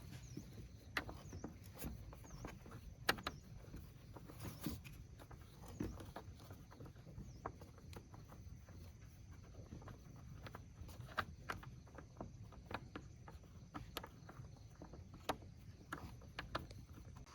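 Scattered, irregular light clicks and knocks, a few sharper than the rest, over a low steady rumble.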